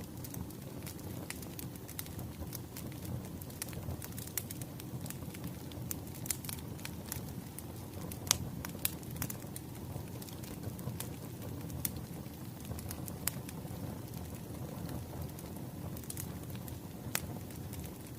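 Crackling wood fire: a steady low rumble with irregular sharp pops and snaps, one louder pop about eight seconds in.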